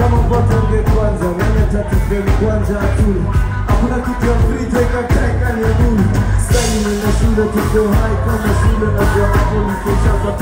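Live concert music over a PA system, a male vocalist singing into a microphone over a heavy bass-led backing.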